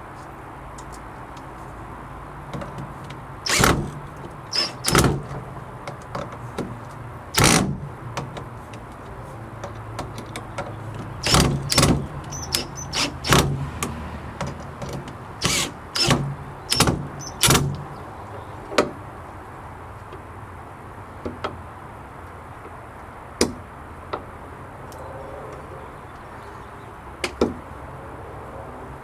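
A string of sharp knocks and clanks: metal hasp latch hardware and the wooden gate being handled and struck during fitting. They come thickly for about fifteen seconds, then only a few isolated knocks near the end.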